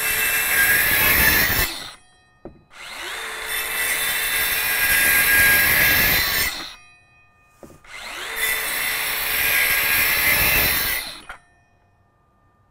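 DeWalt Atomic 20V 4-1/2-inch cordless circular saw cutting through MDF in three passes: the end of one cut, then two cuts of about four seconds each, with short pauses between.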